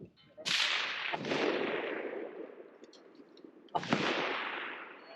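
Rifle shots on a precision rifle range: a sharp crack about half a second in, a second crack under a second later, and another loud shot about three seconds after, each dying away in a long rolling echo.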